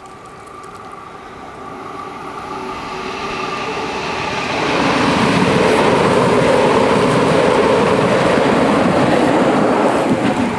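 Skånetrafiken Pågatåg X61 electric multiple unit approaching and passing over a level crossing. It grows louder over the first few seconds, then gives a loud, steady rush of wheels on rail for about six seconds, which drops off sharply near the end as the train clears. The crossing bells ring steadily underneath.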